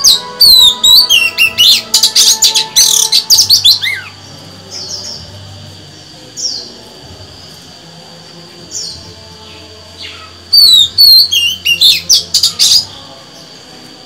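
Female oriental magpie-robin singing: a loud run of quick, varied whistled phrases for the first four seconds, a few single notes after it, then a second loud run about ten and a half seconds in.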